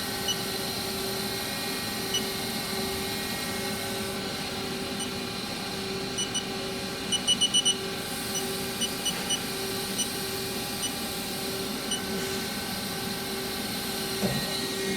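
Haas ST-15 CNC lathe running with a steady hum, while its control gives short high beeps. Most come singly or in pairs, with a quick run of about five beeps around the middle.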